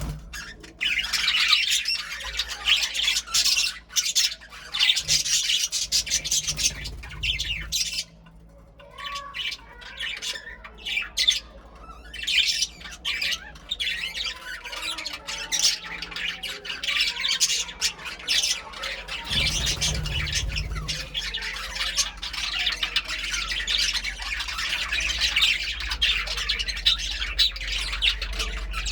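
Budgerigars chirping and chattering in a rapid, continuous warble, with a brief lull about eight seconds in.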